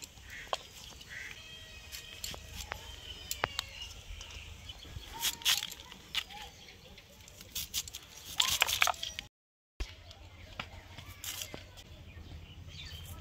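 Vegetables being sliced on a boti, a curved blade fixed upright on a base: a run of short crisp cutting clicks, denser and louder a little after the middle. Birds chirp in the background, and the sound breaks off briefly about nine seconds in.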